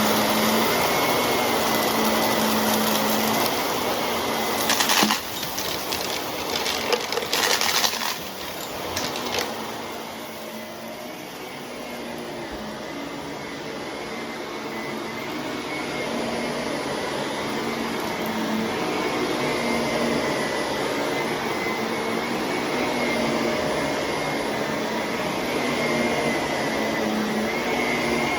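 Vacuum cleaner running steadily, its motor hum carrying a steady whine. A few sharp clatters come around five to eight seconds in. The sound then drops for a few seconds and slowly builds back up.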